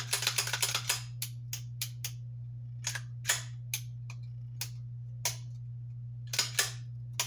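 Metal clicks and clacks of a Ruger 1911 pistol's action being worked: a quick rattling run of clacks in the first second as the slide is racked, then single sharp clicks every second or so, with a close pair a little after six seconds, as the hammer is cocked and the trigger dry-fired to check the newly fitted trigger for slop.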